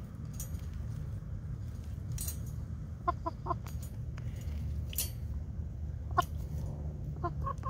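Chicken clucking: a quick run of three short clucks, a single cluck a few seconds later, then a few more near the end. A few sharp clicks and a steady low rumble sit underneath.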